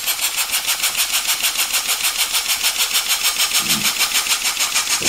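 1956 Polish school model steam engine, a horizontal single cylinder, running steadily on compressed air. Its exhaust chuffs in an even rhythm of about five hissy beats a second.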